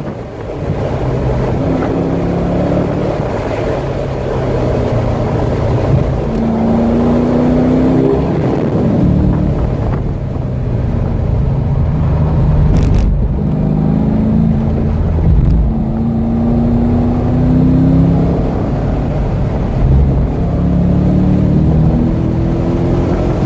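Corvette V8 engine at full throttle on a road course, its pitch climbing hard through the gears and dropping back at each shift or lift for braking, several times over, with wind and tyre noise underneath.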